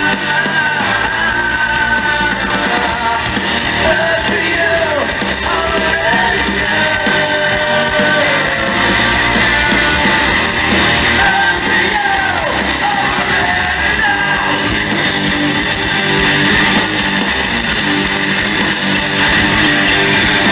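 Hard rock band playing live: electric guitar, bass guitar and drums.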